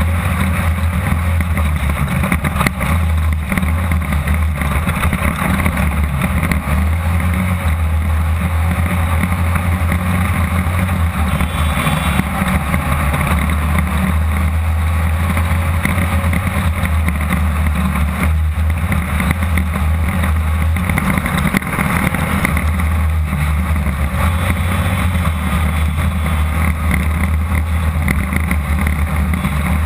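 The air-cooled VW 1600 engine of a Class 2-1600 desert race buggy running hard at a fairly steady pitch, heard from inside the car, with many small knocks and rattles from the chassis.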